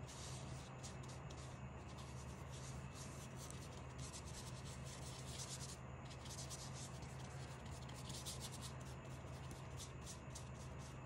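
Paintbrush bristles rubbing across watercolour paper in repeated, irregular strokes, pausing briefly about six seconds in, over a steady low hum.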